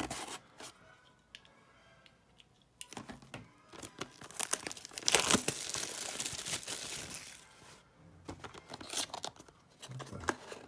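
Wrapping on a trading card box being torn and crinkled open, in a dense stretch of rustling from about three to eight seconds in, with scattered handling clicks before and after.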